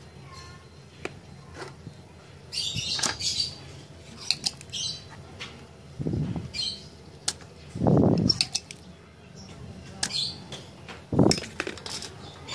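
Small birds chirping now and then, mixed with scattered sharp clicks and a few dull knocks from desoldering work on a circuit board with a soldering iron and a desoldering pump.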